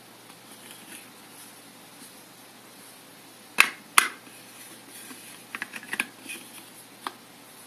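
3D-printed plastic filter holder clicking and knocking as it is handled and fitted onto a DSLR lens: two sharp clicks a little before halfway, a quick run of lighter clicks about two seconds later, and one more near the end.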